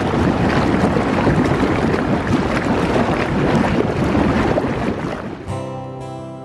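Pool water splashing under a steady rush of wind on the microphone; about five and a half seconds in, this cuts to acoustic guitar background music.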